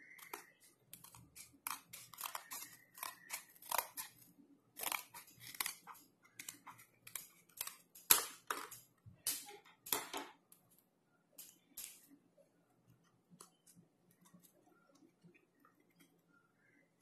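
Scissors cutting through the cardboard backing of a pen drive's retail pack: many sharp, irregular snips over about ten seconds, then a few faint clicks as the pack is handled.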